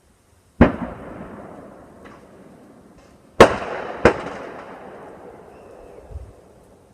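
Fireworks exploding: three sharp bangs, the first about half a second in and the loudest two close together around three and a half and four seconds, each followed by a long echoing rumble that dies away.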